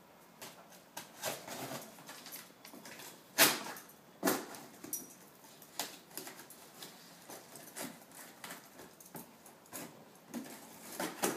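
A taped cardboard box being cut and pried open with a blade: scattered scrapes, rustles and tearing of packing tape, with sharp knocks on the box about three and a half and four seconds in.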